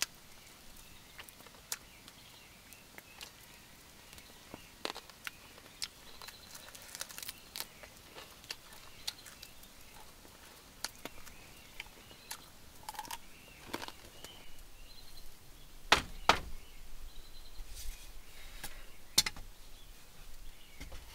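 Soft clicks and small mouth and hand noises of someone eating by hand over a quiet outdoor background, with a few louder sharp knocks about sixteen seconds in and again near the end.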